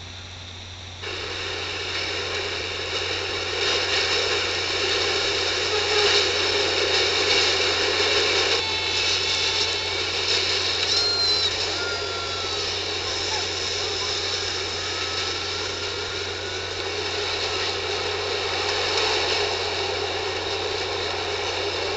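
New York City subway train running, a steady metallic rumble with high whines, starting suddenly about a second in. Short squeals about halfway through, then a slowly rising whine.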